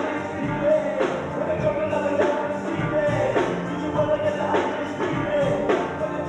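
Live band music with drums, electric guitars and bass playing a rock-style groove, a steady beat a little under two beats a second.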